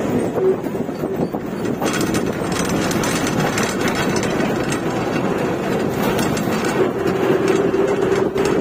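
A bus running on the road, its engine and road noise steady throughout, with a few brief rattles.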